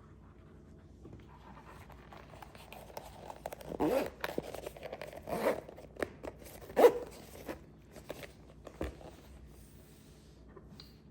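Hands handling metal camera-mount parts: rustling and scraping with several sharp knocks and clacks, the loudest about seven seconds in.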